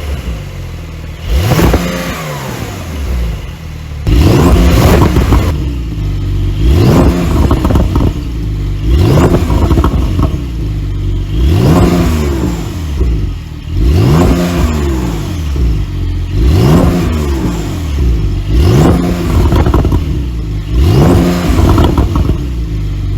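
Porsche 911 (992) Carrera's twin-turbo flat-six revved in quick stationary blips, about one every two seconds. Each rev climbs sharply and falls away, loud through the exhaust.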